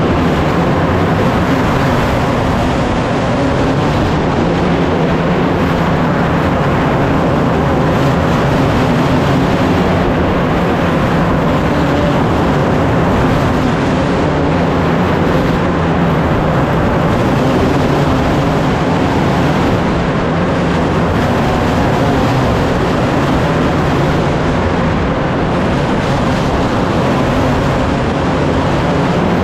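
A field of racing engines running together on track, a loud, steady, unbroken engine drone.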